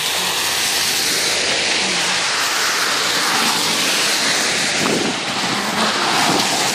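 Steady rushing hiss of tyres on a wet, slush-covered road.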